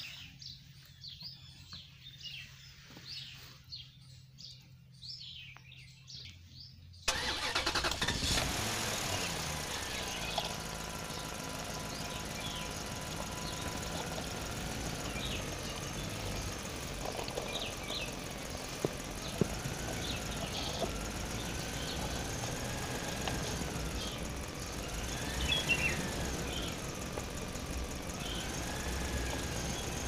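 Birds chirping, then from about seven seconds in a sudden, steady engine-like drone with a slowly wavering whine and a few sharp clicks.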